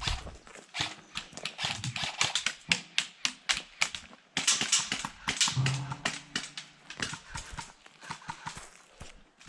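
Footsteps of a player moving quickly over dry ground: a quick, uneven run of sharp steps, about three a second, busiest around the middle.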